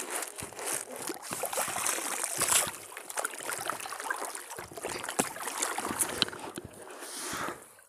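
Lake water splashing and sloshing as hands paddle and stir the water beside a small fishing raft, with scattered small clicks and knocks.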